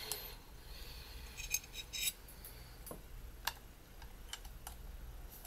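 A handful of small, sharp plastic clicks and taps as a Panasonic DMC-TS30 compact camera's body and small parts are handled and pried apart by hand, over a faint steady low hum.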